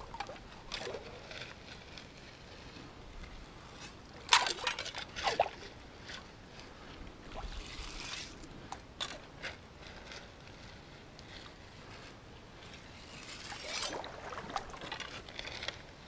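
Shallow creek water sloshing and splashing, with two sharp splashes about four and five seconds in, smaller splashes between, and a longer stretch of splashing near the end, over the faint steady trickle of the stream.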